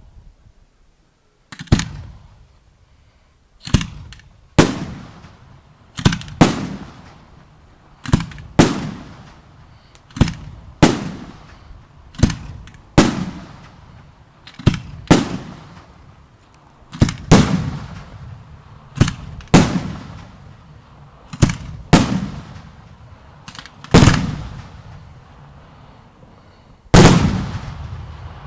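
Fireworks display: aerial shells bursting with sharp bangs, about twenty of them, often in close pairs a half-second apart and one to three seconds between pairs, each bang trailing off in a rumbling echo.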